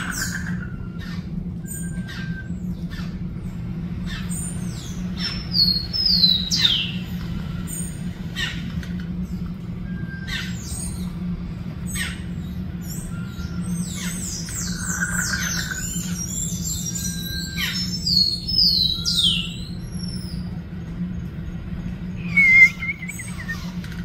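Several birds calling: short sharp chirps throughout, with clusters of shrill descending squawks about five seconds in and again from about fourteen to nineteen seconds, and one loud call near the end. A steady low hum runs underneath.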